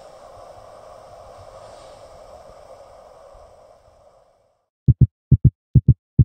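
Steady outdoor wind-and-water hiss that fades out about four seconds in. Then a heartbeat sound effect: short, low thumps in pairs, about two beats a second, much louder than the hiss.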